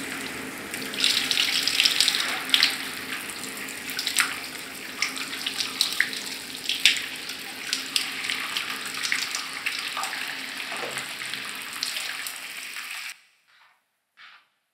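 Shower running, water spattering and splashing, with uneven sharp splashes over a steady wash. It cuts off suddenly near the end, leaving only a faint soft knock.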